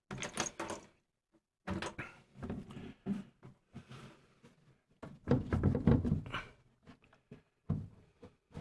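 Knocks, clunks and rattles of parts being handled and fitted into a furnace cabinet, with the loudest cluster of clunks about five to six and a half seconds in.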